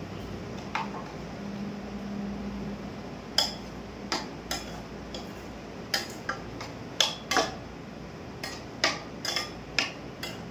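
Metal spoon clinking and scraping against a small kadai while stirring, a dozen or so sharp, irregular clinks through the second half, over a low steady hum.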